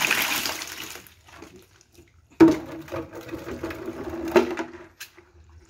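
Water and fish pour out of a plastic bucket into a plastic mesh basket, splashing for about a second. About two and a half seconds in, a sudden buzzing rattle with a steady hum starts, with a sharp knock just before it stops.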